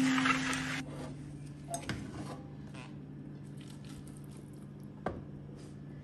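A spoon scooping saucy beef bulgogi out of a frying pan, with soft wet squishing and two light knocks of utensil on pan, over a steady low hum. Background music ends about a second in.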